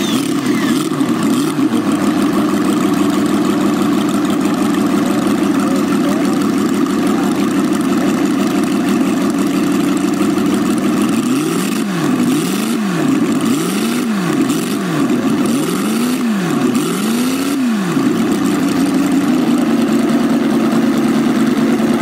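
Scale-model flathead V8 engine running at a steady idle. About halfway through it is revved five times in quick succession, its pitch rising and falling with each blip, then it settles back to idle.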